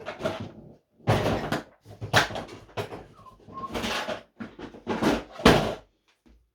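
Hand tools clattering and knocking as they are rummaged through, in a series of short separate bursts.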